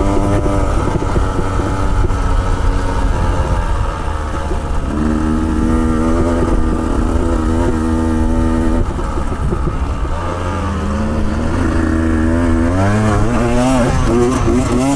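Off-road motorcycle engine running under load on a rough rocky track. It holds steady revs, eases off twice, and revs up again near the end, over a low rumble.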